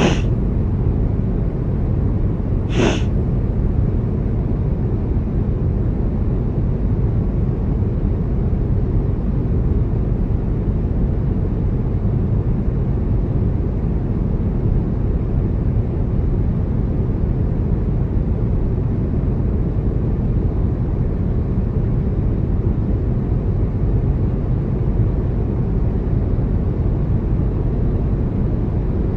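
Steady low drone of an aircraft cabin, with two short sharp sniffs in the first three seconds from a man sniffling with an illness.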